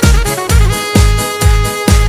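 Instrumental break of a Balkan folk-pop song, with no vocals: a steady kick drum about twice a second under keyboards and a melodic lead line.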